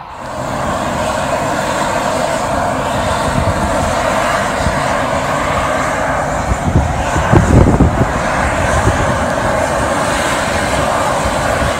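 Yellowstone hot spring boiling and a steam vent hissing steadily, a constant rushing noise. Uneven low rumbles run underneath and are strongest about two-thirds of the way through.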